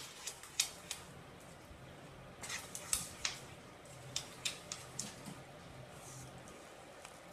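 Wooden spatula stirring thick rice-and-milk pudding in a kadai, with irregular scrapes and clicks against the pan, in clusters.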